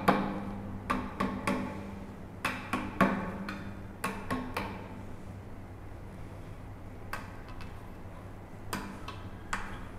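Two-faced mallet knocking the protruding end of a tapered stool leg from side to side, loosening the tight tapered leg joint from the wooden seat. Sharp knocks come in quick clusters over the first four or five seconds, then a few fainter knocks near the end.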